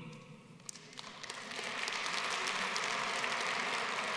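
Audience applauding: a few scattered claps about a second in, quickly swelling into steady applause.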